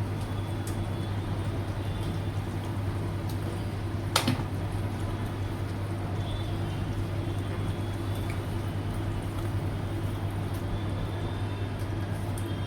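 Steady low hum with a faint even hiss over it, and one sharp click about four seconds in.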